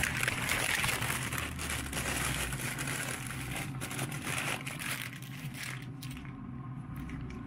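White butcher paper being crumpled and folded by hand, crinkling in clusters for about the first six seconds, then a few light rustles and clicks.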